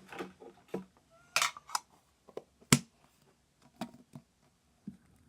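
Small clicks and taps from handling slime and its metal tin container, with one sharp click about two and a half seconds in.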